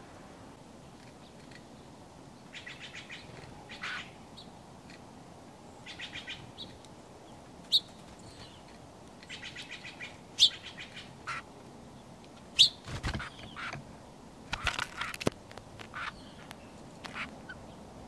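Small songbirds calling at a seed feeder: sharp single chip notes and several short, rapid chattering series. A cluster of dull thumps and fluttering comes about two-thirds of the way through.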